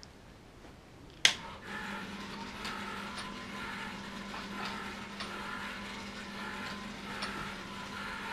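A sharp click about a second in, then a Clay Paky Astro Ball disco light's drive motor running with a steady low hum and whir and occasional light ticks as it turns the beam head.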